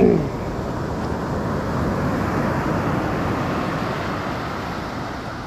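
Surf washing on a beach: a steady rush of breaking waves that swells a little in the middle and eases off near the end.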